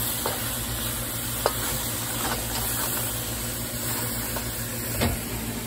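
Ground beef and mushrooms sizzling in a hot wok while a wooden spatula stirs them, with a few sharp knocks of the spatula against the pan.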